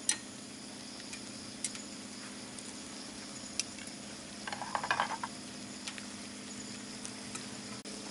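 Meat and vegetables sizzling in a frying pan on a wood-burning camp stove: a steady frying hiss with a few light ticks and a brief louder burst of noise just past halfway.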